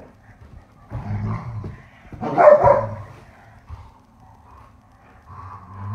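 Two dogs play-fighting, making growly vocal noises about a second in, then a loud bark a little after two seconds and another right at the end.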